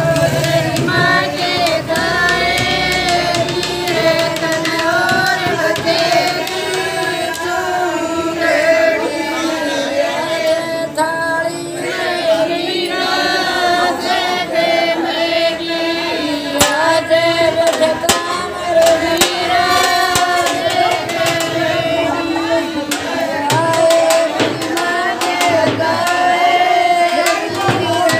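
Group of women singing a Haryanvi wedding folk song (bhat geet) together in a continuous melody, with percussion beating along.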